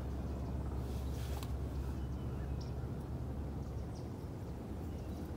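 Outdoor background noise: a steady low rumble with a few faint, short high-pitched sounds over it.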